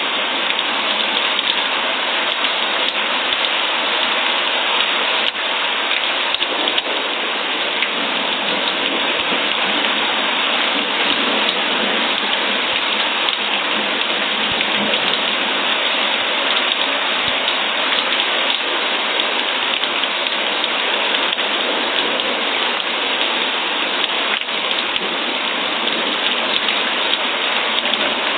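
Steady, dense rainfall pattering on a surface, an even hiss with no let-up.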